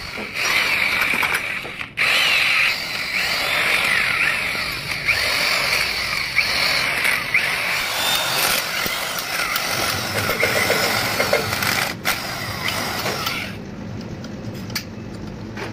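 Handheld power tool run against the valve spring retainers of a diesel cylinder head, a loud rattling run with a squeal, breaking off briefly twice and stopping about 13 seconds in.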